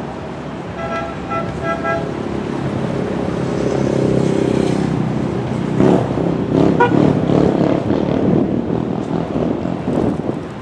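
Road traffic: a vehicle passing, its noise swelling to a peak around the middle, with a short series of beeping toots about a second in.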